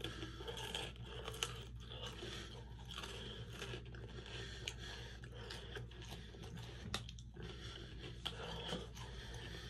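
Close-up biting and chewing of a chocolate-coated ice cream cone: irregular crisp crunches as the chocolate shell and cone break, with a few sharper cracks.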